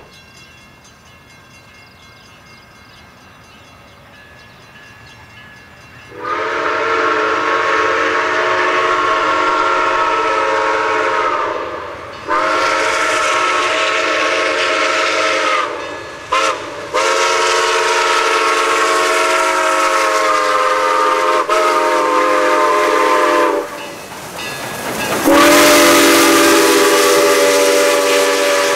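Whistle of QJ 6988, a Chinese-built QJ-class 2-10-2 steam locomotive, sounding a chord in long blasts: long, long, short, long, the grade-crossing signal. After a short pause comes one more long, louder blast with a deeper note, with steam hiss under it.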